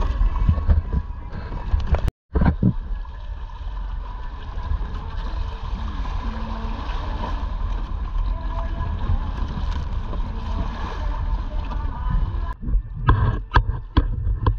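Wind buffeting the microphone over water rushing and splashing along the hull of a sailing kayak moving through choppy water. There is a brief dropout about two seconds in, and near the end a few short knocks.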